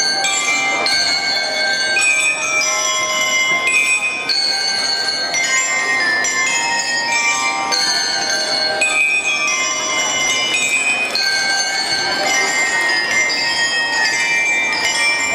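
Bell lyres of a drum-and-lyre band playing a quick melody of bright, ringing metal notes, with crowd chatter underneath.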